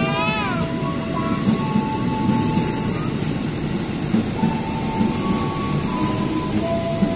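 KRL Commuter Line electric train running past the platform, with steady noise from the cars and wheels and a few steady tones that shift in pitch. A brief falling tone sounds right at the start.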